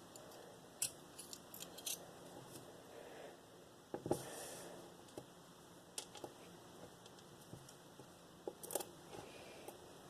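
Small metal clicks and taps as the parts of a Master Lock 410 padlock are handled while it is being gutted. They are light and scattered, with a cluster about a second in, another near four seconds, and a few more near the end.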